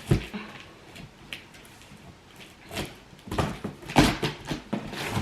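A knock right at the start, then quiet, then a cluster of short knocks and clatters between about three and four and a half seconds in, like things being handled in a small room.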